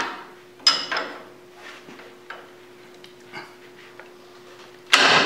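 Hand tools clinking and knocking on the cast-iron change gears of a South Bend 10K lathe as a strap wrench and a wrench are worked to break a gear nut loose: a sharp metallic clank with a short ring under a second in, then a few lighter taps, over a faint steady hum. A loud sudden sound near the end.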